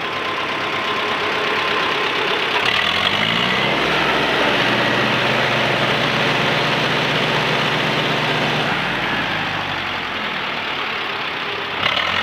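1961 John Deere 2010 tractor's four-cylinder engine running. About three seconds in it revs up, holds a higher steady speed for around five seconds, then drops back toward idle.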